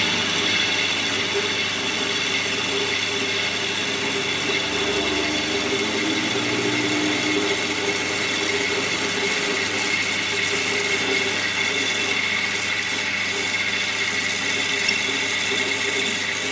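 A power tool running steadily without a break: a constant whine over a hiss.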